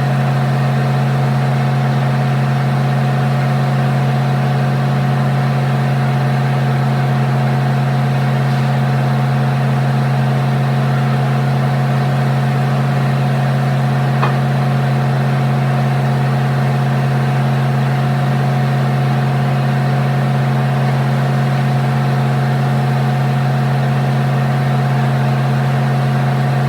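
An engine idling steadily with a constant low hum, with one small click about halfway through.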